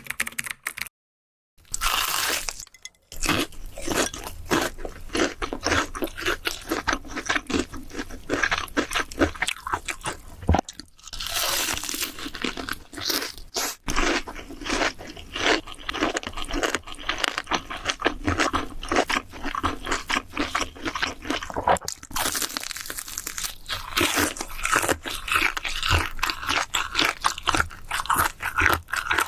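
Crisp, crunchy food being bitten and chewed close to the microphone, a dense run of rapid crunches with a brief break near the middle.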